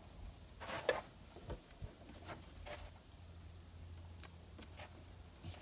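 Faint scattered clicks and rubbing of a PCV valve and its rubber grommet being pushed and worked into a Jeep Wrangler TJ's valve cover by hand.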